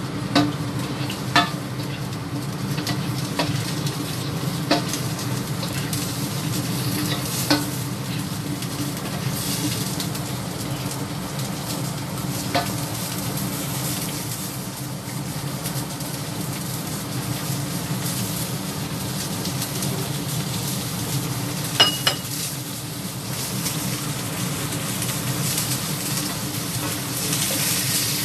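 Chopped bell peppers sizzling as they are stir-fried in a wok, with the spatula scraping through them and now and then clicking sharply against the pan, over a steady low hum.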